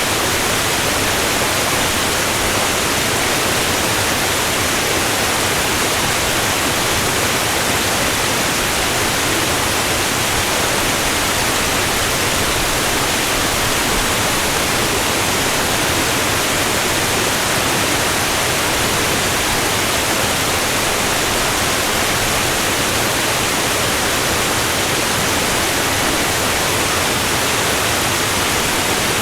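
Niagara Falls: a great mass of falling water making a steady, unbroken rushing noise that covers all pitches from deep to hissing high, with no change throughout.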